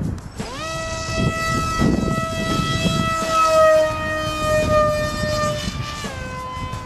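Electric brushless motor and propeller of a foamboard RC jet spooling up to a steady high whine about half a second in, at launch. About six seconds in the pitch drops as the throttle is eased.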